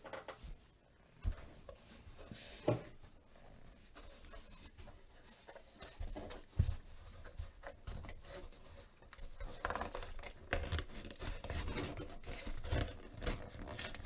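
Hands handling a white cardboard card box: scattered taps and clicks at first, then steadier rubbing and scraping of fingers on cardboard in the second half as the lid is worked loose.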